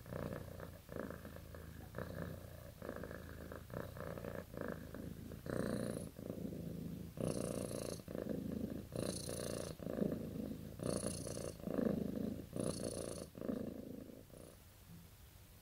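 Domestic cat purring in steady breath-by-breath cycles. About a third of the way in, the purr gets louder, with longer pulses roughly every two seconds, then stops shortly before the end.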